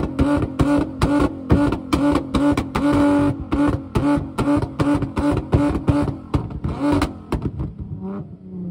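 Car engine held on a two-step launch-control rev limiter, its exhaust backfiring with loud pops and bangs about three a second over a steady engine note. About seven seconds in the bangs stop and the revs fall away.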